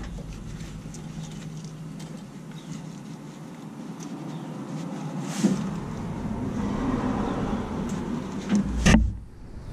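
Hands working old spark plug wires loose on a V8 engine: faint rustling and clicks, a sharp knock about five seconds in, and a louder thump near the end.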